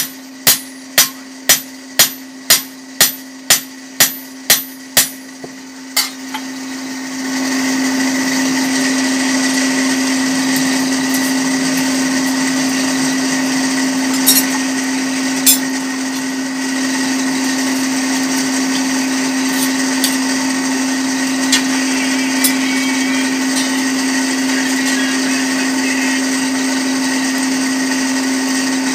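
A hammer striking a heated fodder-chopper blade on an anvil, about two ringing blows a second, stops about six seconds in. An electric grinder then starts and runs steadily, sharpening the blade's edge. The hum of the furnace's electric blower runs underneath.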